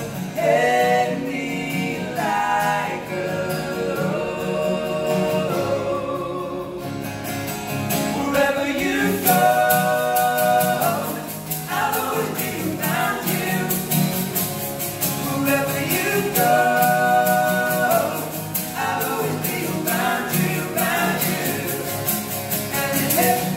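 Three male voices singing a pop ballad together to two strummed acoustic guitars, with long held notes twice. A steady sharp beat joins about nine seconds in.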